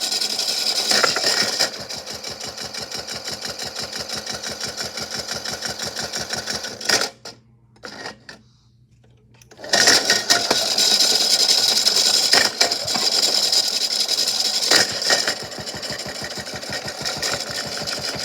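Toy washing machine's small electric motor running with a fast rhythmic clatter from a big rock tumbling in its drum. It cuts out for about two seconds midway, then starts up again louder.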